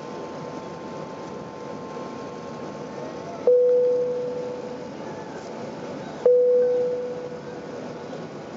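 Airbus A380 cabin chime sounding twice, a single clear bong each time about three seconds apart, each ringing out and fading, over the steady hum of the cabin in flight.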